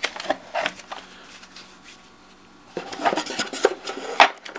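Stacks of Cards Against Humanity cards handled and packed into a cardboard storage box: rustling, sliding and tapping of card against card and cardboard. There is a quieter lull in the middle, and a sharp tap just after four seconds.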